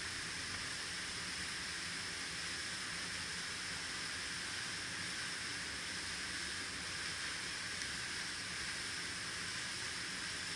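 Steady, even hiss with no other clear sound, with one faint tick about eight seconds in.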